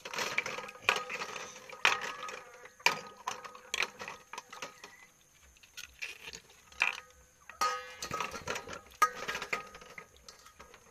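Land snail shells clicking and clattering against each other and a steel bowl as they are scrubbed by hand in water, in irregular bursts with sharp knocks.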